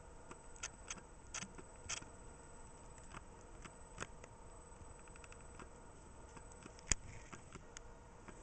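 Faint, irregular clicks and ticks over a low hiss, one sharper click about seven seconds in.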